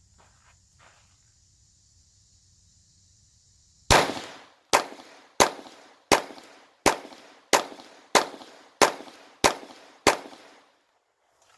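Glock 44 .22LR pistol firing a string of ten shots at a steady pace, about one every 0.7 seconds, starting about four seconds in; each shot has a short decaying echo.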